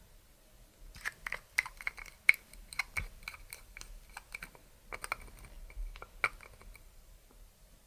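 Clear slime being pressed and worked by hand: an irregular run of small sticky clicks and pops from about a second in until near the end, stopping for a moment around the middle.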